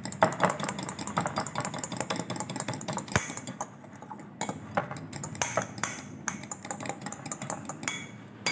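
Metal spoon and knife clicking and scraping against a glass bowl of thick mayonnaise sauce: a rapid, irregular run of light ticks.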